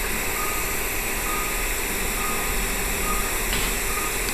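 Operating-room patient monitor giving a faint short beep about once every 0.9 s, in time with the patient's pulse, over a steady hiss.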